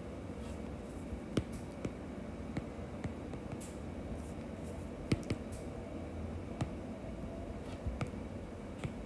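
Stylus tip tapping on a tablet's glass screen while words are handwritten: light, irregular clicks, a dozen or so, over a faint steady hum.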